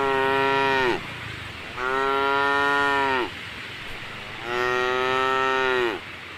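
Cow mooing: three long calls about a second apart, each dropping in pitch as it ends. The first call is already under way at the start.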